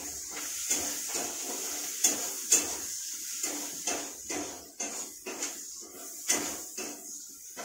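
A spatula scraping and knocking against a metal kadai about twice a second as onions are stirred while frying in oil, over a steady sizzle.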